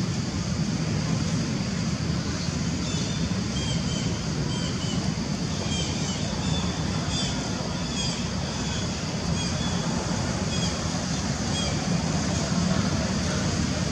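Steady low outdoor rumble, with a run of faint, short, high-pitched chirps repeating from about three seconds in until near the end.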